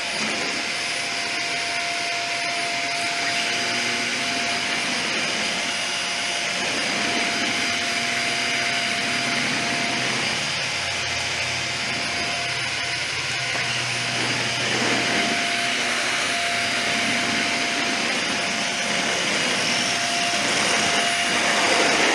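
Dyson vacuum cleaner running steadily, a high motor whine over a rushing hiss, as it sucks oil-soaked Krudz 502 off a concrete floor.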